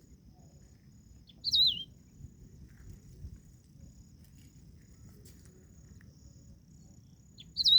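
A songbird singing two short phrases about six seconds apart, each a quick wavering whistle sliding downward, over a faint steady insect trill.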